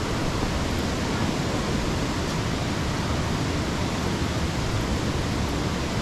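Steady rushing of whitewater at Stubb's Falls, tumbling over rocks: a constant, deep rush with no breaks.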